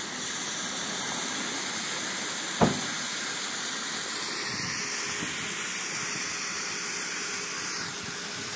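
Red hand-held distress flares burning with a steady hiss. A single sharp knock is heard about two and a half seconds in.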